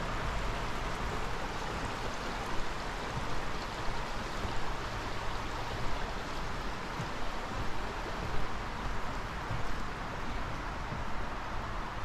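Steady rush of a brook's running water, with a few soft irregular thumps.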